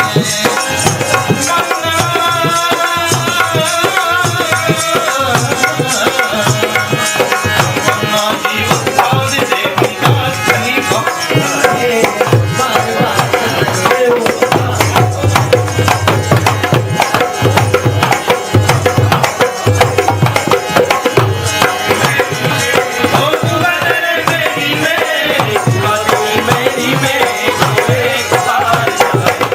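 Devotional bhajan music: tabla playing a steady, fast rhythm under a wavering melodic line.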